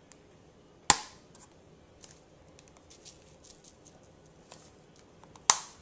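Two sharp knocks, about a second in and again near the end, with faint light ticks between: spice containers handled and set down while seasoning a flour and cornmeal dredge.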